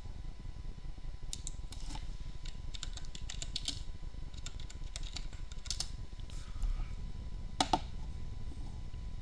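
Computer keyboard typing: a run of quick key clicks for a couple of seconds, a few more a little later, and one sharper click near the end.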